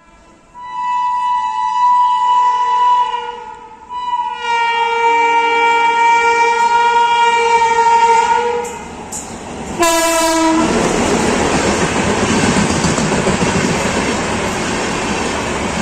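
Indian Railways locomotive air horn sounding two long multi-tone blasts, then a short lower blast. The train then passes close by with a loud, steady rumble and clatter of wheels on the rails.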